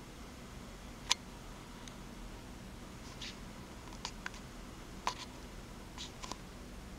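Quiet room tone with a faint low hum, broken by a handful of scattered light clicks and taps, the sharpest about a second in and the rest spread over the last four seconds.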